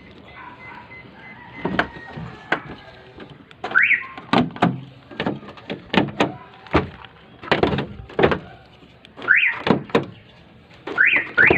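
Newly installed aftermarket remote car alarm on a van sounding short rising siren chirps as it is locked and unlocked by remote: a single chirp about 4 seconds in, another about 9 seconds in, and a quick double chirp near the end. Sharp clicks and door clunks come between the chirps.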